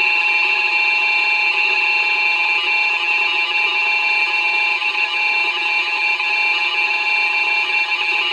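Simulated electronic siren sounding the alert signal, one steady unwavering tone, played from an online siren controller through an old radio's very old speaker at nearly full volume.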